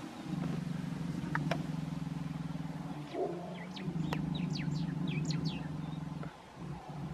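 Vehicle engine idling steadily, dipping briefly about three seconds in and again near the end. Birds chirp a few times in the middle, and a short low grunt comes about three seconds in.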